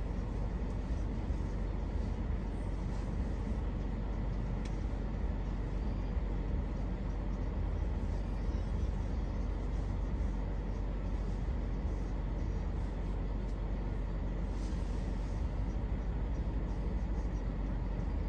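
Steady low rumble of road and engine noise from a car driving, heard from inside the cabin.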